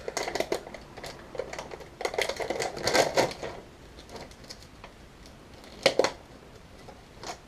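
Plastic soft-bait pack crinkling and rustling in the hands as a soft-plastic swimbait is pulled out of it, in irregular crackly spells with a couple of sharper clicks near the end.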